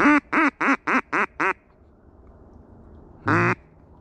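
Mallard hen quacks blown on a hand-held duck call, loud and close: a quick run of six evenly spaced quacks, then a single longer quack near the end. The hunter is calling to turn passing ducks in to the decoys.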